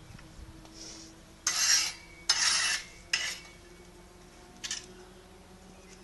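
Three short bursts of harsh scraping from a masonry tool working brick and mortar, about a second in, then a fainter fourth scrape near the end.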